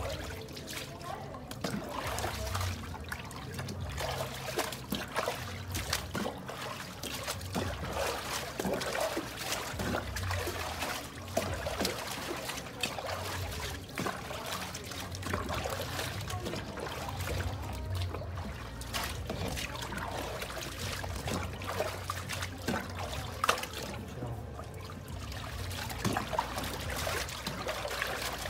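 Water trickling and splashing irregularly as a dog is wetted down for a bath.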